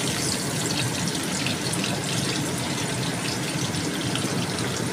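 Minced garlic sizzling and crackling in hot oil in a wok as it is sautéed, over a steady hiss of heavy rain.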